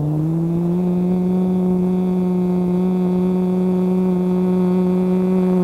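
A man's steady closed-mouth hum on one held pitch, breathed out in a yogic breathing exercise; it starts abruptly, rises slightly in pitch at first, then holds level.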